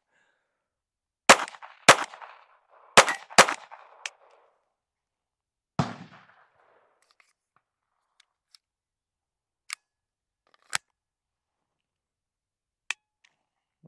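Taurus TX22 .22 LR pistol firing five shots, two quick pairs and then a single, each with a short echo. Three faint clicks follow as the pistol fails to fire a round, which the shooter takes for a bad round.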